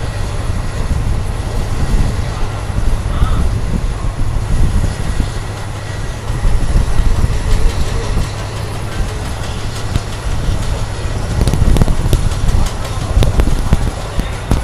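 Passenger train running along the track, heard from on board: a loud, steady low rumble of wheels on rail, with sharper clicks and knocks from the rail joints near the end.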